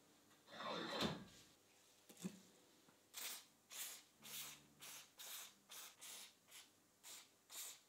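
An aerosol can of penetrating spray hissing through a thin straw in about ten short bursts, roughly two a second, onto the rusted nuts and jaw of an old steel pipe vise. About a second in, a metal scrape and clunk as the bench vise's sliding handle is worked.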